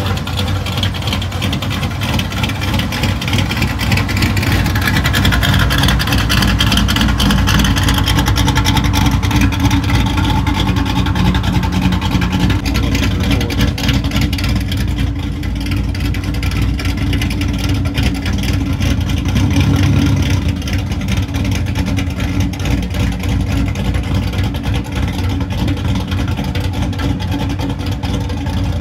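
A pickup truck's engine running close by: a steady, loud, deep exhaust rumble that swells a little now and then.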